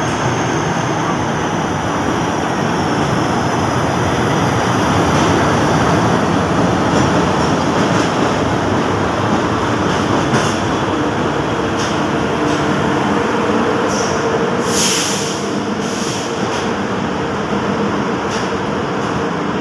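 An express train's coaches rolling into the station alongside the platform: a steady rumble of wheels on rail with occasional clicks. A brief high squeal comes about fifteen seconds in.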